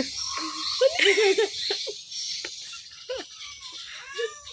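A person giggling softly in short bursts.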